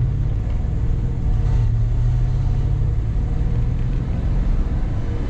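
Exhaust of a 5.7 L Hemi V8 with long-tube headers, no catalytic converters and the stock muffler, heard from inside the truck's cab with the back window open. It is a steady low drone while driving, lifting slightly a couple of times.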